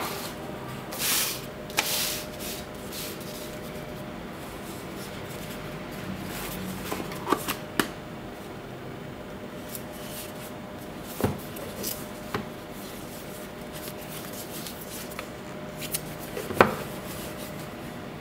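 Hands handling a kraft cardboard watch box and paper packaging on a table: soft rustles and scrapes with a few sharp taps and knocks, the loudest about 16 seconds in.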